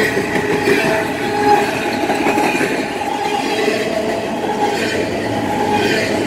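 Double-stack container well cars of a long freight train rolling past close by: a steady rumble and clatter of steel wheels on rail.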